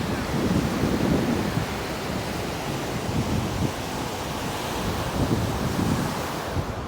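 Ocean surf washing onto the beach, a steady rush that swells and eases, with wind buffeting the microphone as a low rumble.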